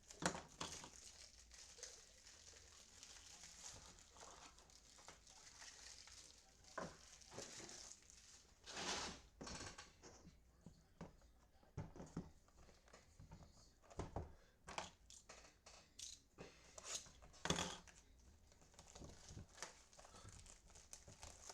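Plastic wrapping and card-pack wrappers crinkling and tearing open by hand, with light handling clicks in between. There are louder tears about nine seconds in and again near seventeen seconds.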